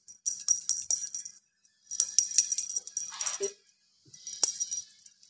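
Small jingle bell jingling in three bursts, shaken as a cat plays with a feather wand toy.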